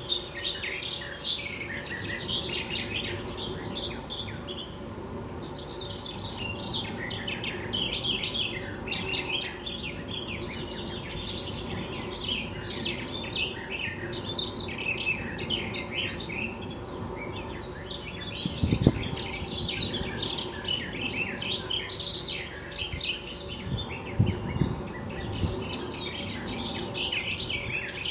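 Several songbirds singing and chirping busily together over a faint steady hum, with one sharp low thump about two-thirds of the way through.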